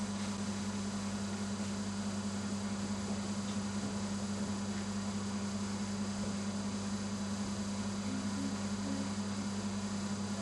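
Steady electrical mains hum with a constant buzz and background hiss, unchanging throughout.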